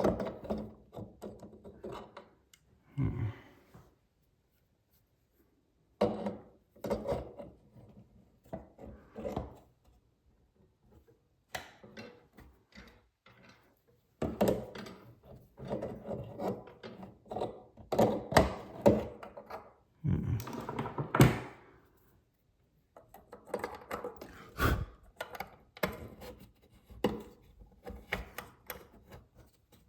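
Intermittent knocks, clicks and scraping of hand tools and metal faucet parts as a faucet stem is threaded back into the valve and turned, in bursts with short pauses between.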